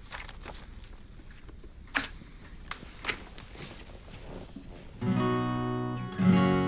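A few faint clicks and knocks, then an acoustic guitar strums a ringing chord about five seconds in, and a second chord near the end, opening a song.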